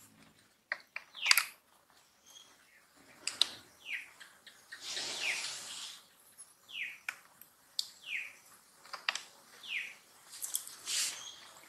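A bird calling over and over, a short falling chirp every second or two, with sharp ticks in between and a brief hissy sound about five seconds in.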